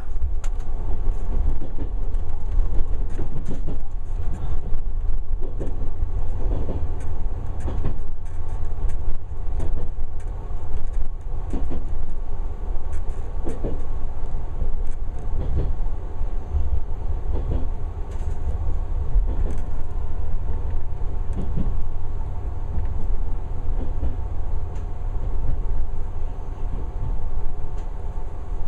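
Running noise of a JR 383 series electric train, heard from inside the car as it rolls into a station: a steady low rumble with scattered knocks and clicks from the wheels crossing points and rail joints, easing a little toward the end as the train slows.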